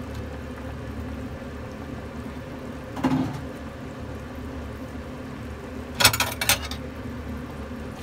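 Stovetop pot of soup simmering under a heap of spinach leaves over a steady low hum. There is a dull knock about three seconds in, and a quick run of sharp metal clinks about six seconds in, from a metal ladle against the stainless pot.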